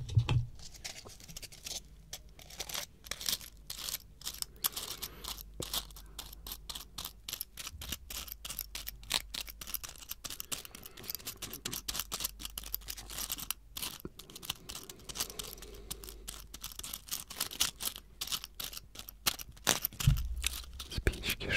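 Fingers scratching and tapping a small box held right up against the microphone: a close-miked, dense run of quick crackling clicks and scratches. There are heavier handling bumps near the start and near the end.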